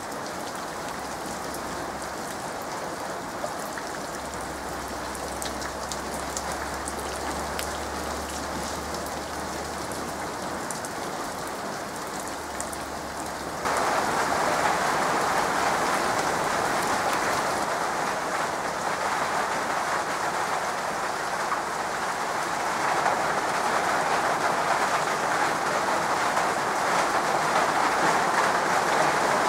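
Steady rain falling on a puddle and wet ground, with single drops ticking in. About halfway through it jumps abruptly louder and denser, a heavy downpour.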